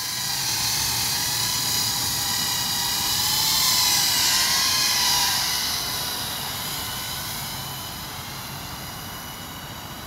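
Skydio R1 drone's propellers whirring in flight, a steady whine wavering slightly in pitch. It grows louder to a peak about four seconds in, then fades as the drone flies off.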